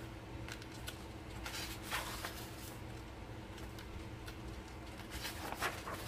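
Coloring book pages being turned by hand: faint paper rustles and swishes, a little louder about two seconds in and again near the end, over a low steady hum.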